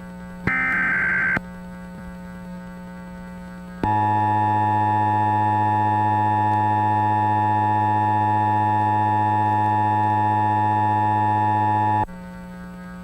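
A one-second burst of EAS SAME header data, a harsh digital warble. About two and a half seconds later comes the two-tone EAS attention signal, held steady for about eight seconds and cutting off abruptly. A low hum fills the gaps.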